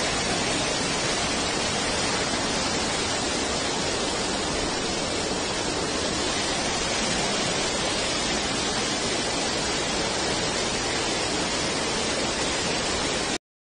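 Waterfall in flood, water rushing and splashing steadily over rocks. The sound cuts off suddenly near the end.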